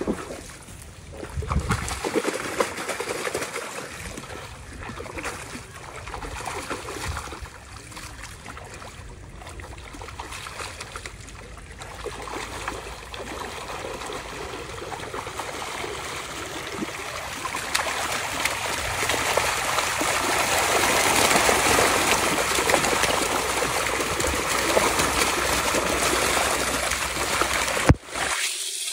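Pond water splashing and churning as wallago catfish thrash inside a seine net being hauled in at the bank. The splashing grows louder and denser over the last ten seconds, then breaks off abruptly for a moment near the end.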